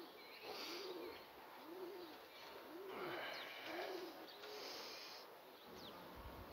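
Racing pigeons cooing faintly: a series of about six low coos, each rising and falling, roughly a second apart. A couple of thin, high bird chirps sound in between.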